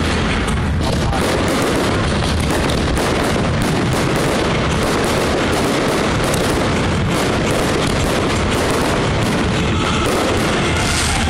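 Aerial fireworks bursting in quick succession: a dense, unbroken run of overlapping bangs and crackles.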